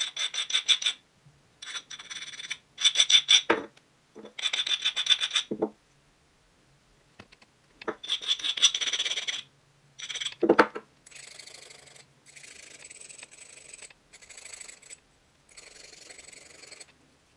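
Steel blade pole piece of a DiMarzio X2N guitar pickup being filed by hand in runs of quick rasping strokes, each run about a second long, with a few soft knocks between them. The strokes are dressing a flared edge and putting a chamfer around it, and they grow quieter after about eleven seconds.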